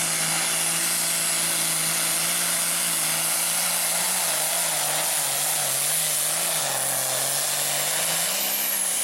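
John Deere farm tractor's diesel engine running hard under full load while pulling a weight-transfer sled. The engine note holds steady, wavers up and down about halfway through, then settles lower as it lugs against the sled.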